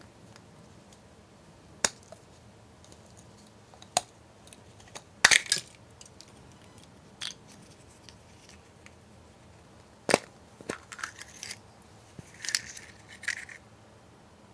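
Thin chocolate shell of a chocolate surprise egg snapping and cracking as it is broken apart by hand, the loudest crack about five seconds in. Later, the plastic toy capsule inside clicks and pops open, with a run of small plastic clicks as its parts are handled.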